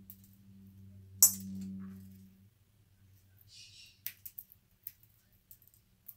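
Canary-winged parakeet cracking black-oil sunflower seeds with its beak: one sharp crack about a second in, then a run of small clicks and crunches in the last two seconds. A low steady hum stops about two and a half seconds in.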